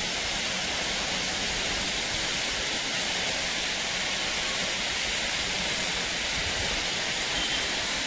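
Steady rush of water from a waterfall and the stream below it, an even, unbroken noise.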